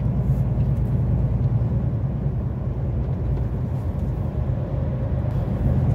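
Steady low rumble of a loaded truck's engine and road noise, heard from inside the cab while driving.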